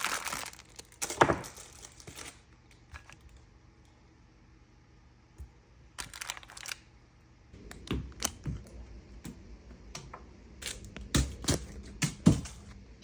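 Handling noises: scattered rustling, clicks and knocks, with one sharp knock about a second in and a busier run of knocks near the end.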